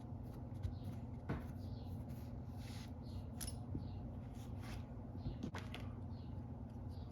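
Faint scattered clicks and short scrapes from handling small objects, over a steady low hum.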